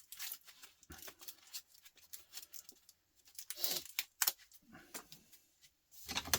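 Scattered light clicks, clinks and rustles of small scrap parts being handled on a work table, busier about halfway through and again near the end.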